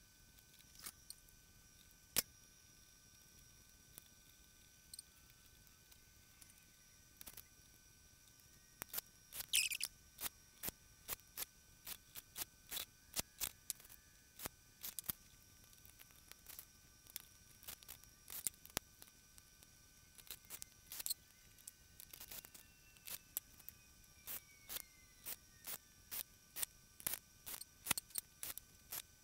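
Small sharp clicks of screws and small parts being handled against the console's metal fader panel. A few scattered clicks come first, then a steady run of about two a second from about nine seconds in.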